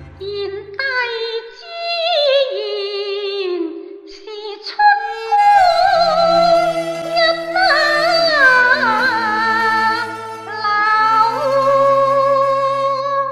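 Cantonese opera music: a high female voice sings drawn-out, sliding notes with a wavering vibrato over instrumental accompaniment, with low held notes entering about five seconds in.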